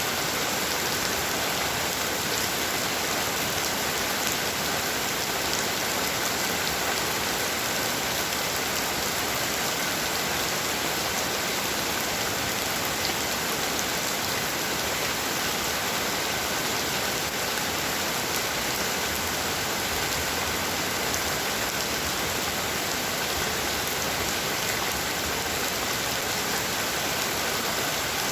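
Heavy rain falling steadily: a dense, even hiss of downpour with fine scattered drop ticks.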